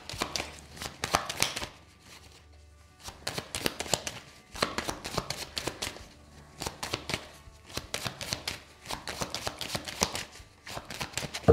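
A deck of tarot cards being shuffled by hand: rapid runs of light card snaps in several spells, with a brief pause about two seconds in.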